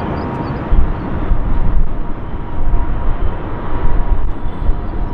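Airbus A380's four jet engines at takeoff thrust as it speeds down the runway on its takeoff roll. A loud, steady jet noise with a faint steady whine, and a deep rumble that grows heavier about a second in.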